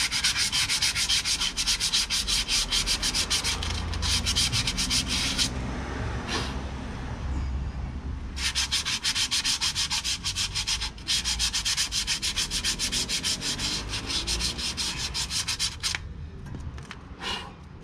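Sandpaper rubbed by hand on the rusty steel wheel hub of a van's rear axle, in quick back-and-forth strokes. It pauses for about three seconds about five and a half seconds in, breaks briefly near eleven seconds, and stops about sixteen seconds in.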